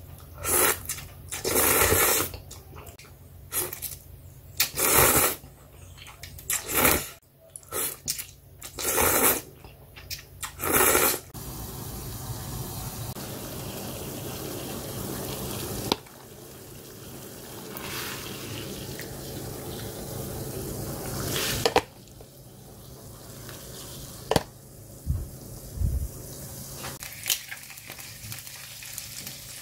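Loud slurping of instant ramen noodles in repeated short bursts for about the first ten seconds. Then a steady hiss and bubbling of water at a rolling boil in a stainless pot beside squid cooking in a frying pan, with a few sharp knocks near the end.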